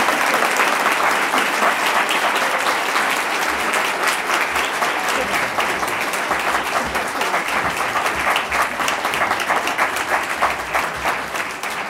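Audience applauding: many hands clapping in a dense, even patter that slowly fades toward the end.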